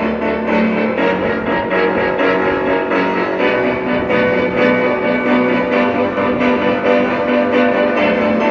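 Live orchestra with piano and bowed strings playing a slow classical piece, with long held notes.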